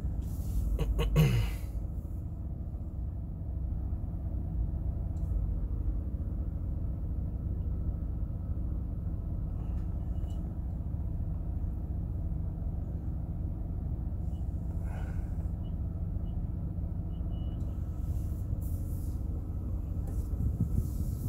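GMC Savana cargo van's engine idling, a steady low rumble heard from inside the cab. A brief louder sound comes about a second in.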